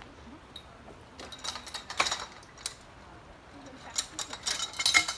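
Metal parts of a freestanding aerial rig clinking and rattling as it is taken apart: a cluster of sharp clinks about a second in, then a denser run of clinks and rattles near the end.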